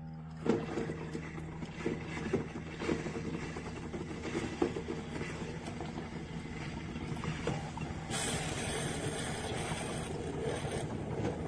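Hamilton Beach FlexBrew Trio drip coffee maker brewing into its carafe: irregular gurgling and sputtering clicks over a steady low hum, with a louder hiss joining at about 8 seconds.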